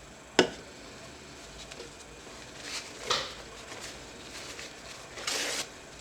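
Handling noises from work on a laptop's parts: a sharp click about half a second in, a short scrape around three seconds, and a half-second rustle near the end.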